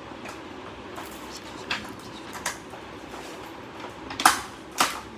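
Items from a drawing set and its packaging being handled: a few short clicks and crinkles, the two loudest near the end, over a steady low hum.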